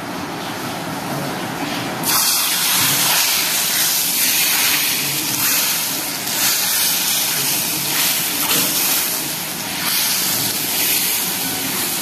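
Hot tadka of oil with cumin, turmeric and asafoetida bubbling in a ladle, then poured into a pot of cooked arhar dal about two seconds in, setting off a loud, steady hissing sizzle.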